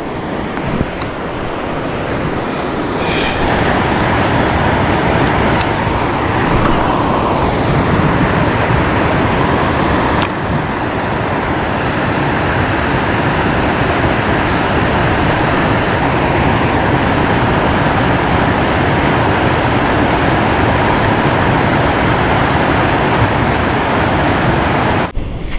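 Water pouring over a concrete weir spillway: a loud, steady rushing that cuts off suddenly near the end.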